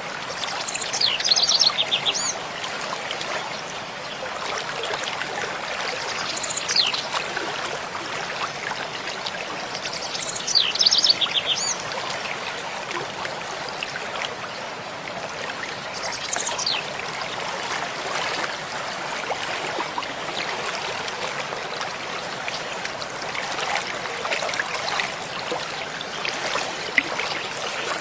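A stream babbling steadily, with a small songbird singing four short, rapid trilled phrases that fall in pitch, about five seconds apart early on and then fading out; the first and third phrases are the loudest.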